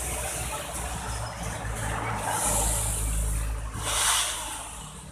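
A heavy vehicle passing close by on the road, its engine rumble swelling in the middle, with a short burst of hiss about four seconds in.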